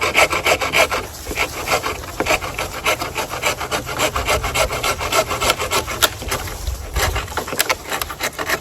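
Folding pruning saw cutting through a small branch by hand in quick, rhythmic back-and-forth strokes. The strokes stop near the end.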